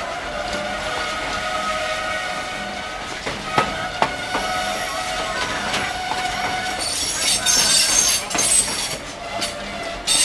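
Train brakes squealing while the train rolls along, several steady shrill tones at once. There are two sharp metallic knocks about three and a half and four seconds in, and a louder, higher screech from about seven to eight and a half seconds. The uploader blames the brakes for the squeal and says they want lubricating.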